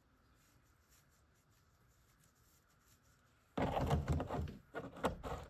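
Faint background for about three and a half seconds. Then comes a sudden run of loud rubbing, scraping and knocking as a strawberry plug wrapped in rock wool is pushed into a side port of a white plastic hydroponic tower.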